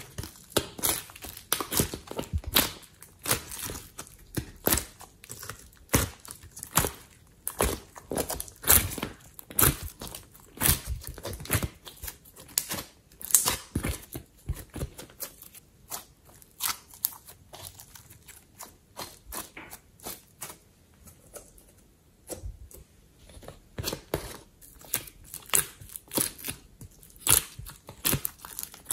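Slime and modelling clay squeezed and pressed by hand, with pieces pulled from a silicone mould, making rapid, irregular sticky crackles and clicks that thin out for a few seconds past the middle.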